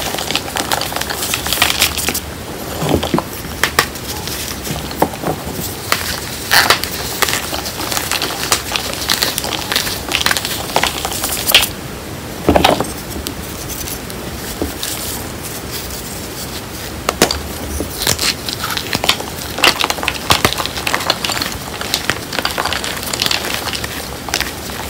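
Hands crushing and crumbling chunks of reformed gym chalk mixed with cornstarch powder in a bowl: dense, irregular crunching and crackling with a few louder snaps as chunks break.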